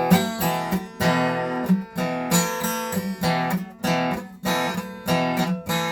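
Acoustic guitar strummed in a steady rhythm, chords struck about twice a second, with no singing over it.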